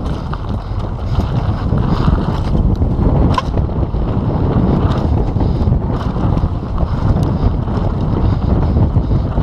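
Downhill mountain bike running fast over a dirt trail: wind buffeting the GoPro's microphone and tyres rumbling on the dirt, with occasional knocks from the bike over bumps.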